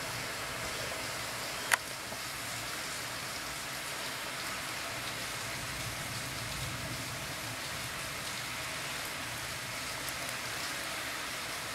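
Heavy rain pouring steadily onto standing water on a paved terrace, splashing hard. One sharp tap sounds about two seconds in.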